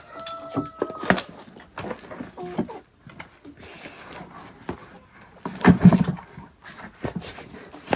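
An animal calling, among scattered knocks and clatter; the loudest sound comes about six seconds in.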